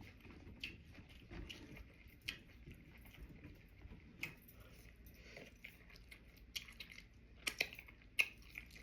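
A person chewing sushi close to the microphone, with short wet mouth clicks and smacks every second or so, the loudest near the end.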